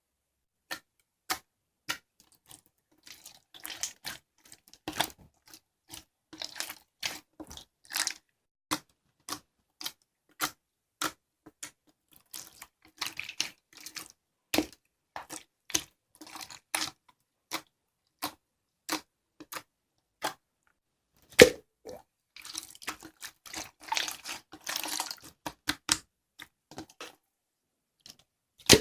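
Slime being pressed and poked by hand: a run of sharp, wet clicks and pops, roughly one or two a second, with stretches of denser squishy crackling between, and one loud pop about two-thirds of the way in.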